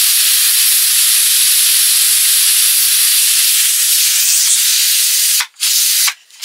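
Pressure cooker letting off steam through its lid valve: a loud, steady hiss that cuts off briefly twice near the end.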